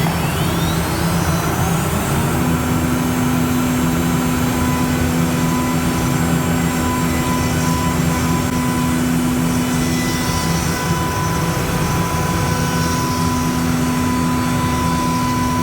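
Multicam 3000 CNC router's spindle spinning up with a rising whine, then running at a steady pitch over the steady roar of the dust extractor and vacuum pump.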